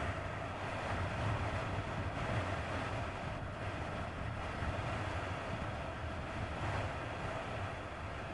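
A 1999 Kawasaki ZX-9R riding at a steady cruise: its inline-four engine runs steadily under a constant rush of wind and road noise.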